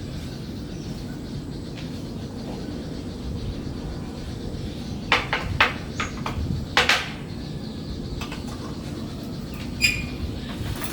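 Morning ambience: a steady low rumble, with a quick run of sharp clicks a little past halfway and a single short, high ringing note near the end, amid faint bird chirping.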